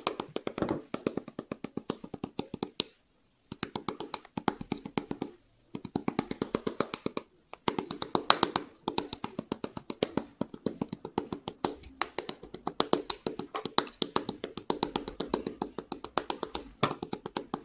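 A wooden paddle tapping rapidly on a ball of wet clay, several strikes a second in long runs with a few brief pauses: the paddling method of beating an ocarina body to even out its walls.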